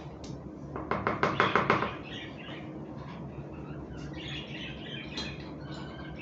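Spoon stirring soft flour-and-water dough in a bowl: a quick run of clicking strokes about a second in, then quieter, with small birds chirping in the background.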